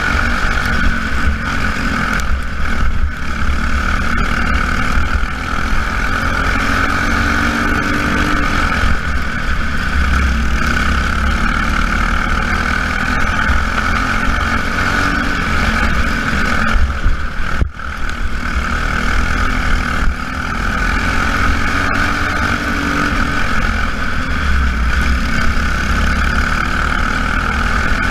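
Engines of Jr Lite race cars running laps during a feature race, a steady, loud, continuous drone that dips briefly about two-thirds of the way through.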